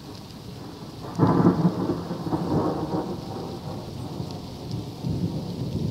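A thunder clap breaking suddenly about a second in and rumbling on, loud, over steady rain falling.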